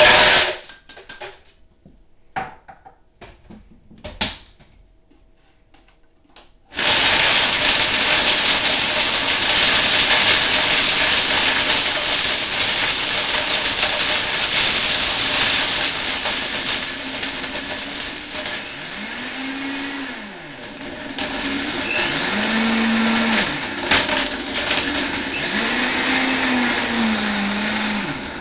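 Ice cubes clattering into the jar of a Vitamix Super 5000 blender, a few knocks as the lid goes on, then the blender starts about seven seconds in and runs loud at high speed, crushing the ice with a noisy grind. In the last third its pitch dips and rises three times.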